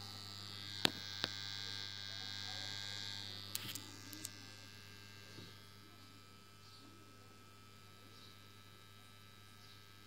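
Small laminated-iron-core transformer humming steadily while energized, a low hum with a buzz of overtones above it. A few sharp clicks come about a second in and again around four seconds.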